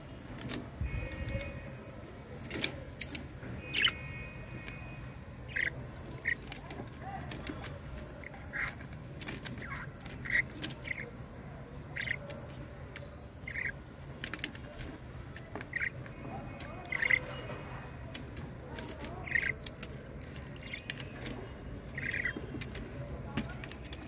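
Budgerigars chirping: short chirps every second or two, with a few longer warbling calls and scattered light clicks over a faint steady hum.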